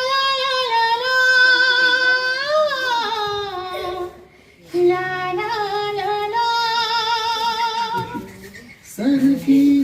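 A high, woman-like voice singing a Hindi film song unaccompanied, with long held notes that waver in vibrato. It comes in two phrases with a short break about four seconds in, and the voice drops lower near the end.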